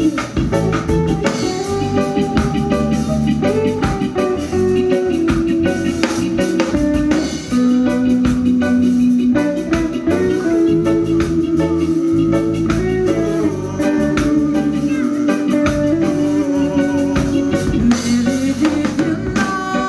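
Live reggae band playing with electric guitar, bass guitar, drum kit and keyboards. A melody of long held notes moves over the groove of bass and drums.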